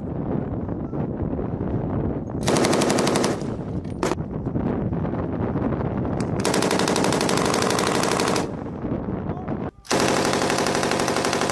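Vehicle-mounted machine gun firing in bursts of rapid automatic fire. There is a short burst about two and a half seconds in, a single shot near four seconds, a long burst of about two seconds from six and a half seconds, and another long burst from about ten seconds.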